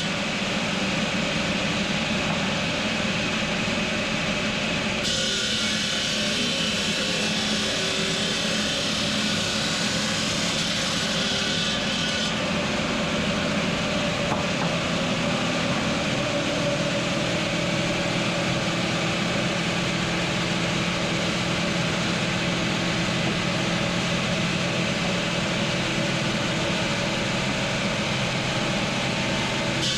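Steady noise of stone-cutting machinery: a low motor hum under a dense hissing cutting noise. The sound changes abruptly about five seconds in and again about twelve seconds in.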